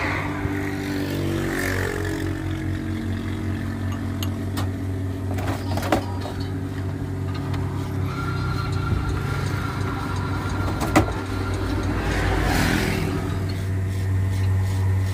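Commercial two-group espresso machine's pump running with a steady low hum while a shot brews, with a few knocks and a sharp click from cups and the machine.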